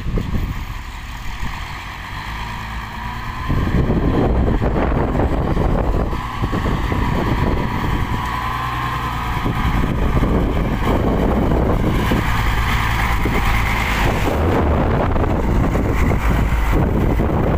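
Hino water tanker truck's diesel engine running as it drives slowly past, spraying water onto crushed rock; the sound gets louder about three and a half seconds in and stays loud.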